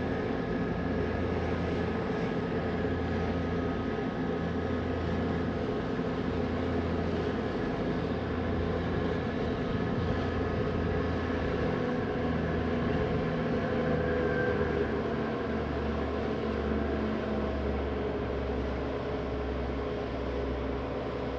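Passenger ferry's engines droning steadily while under way: a low hum with a slow pulsing beat, dropping a little lower in pitch about two-thirds of the way through.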